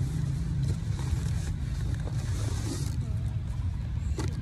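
Paper and plastic packaging rustling as things are pulled out of a cardboard box, over a steady low rumble, with a sharp click near the end.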